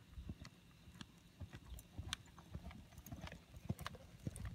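A ridden horse's hooves thudding in deep arena sand at a lope, dull and irregular, with a few sharp clicks among them. The hoofbeats grow louder toward the end as the horse comes close.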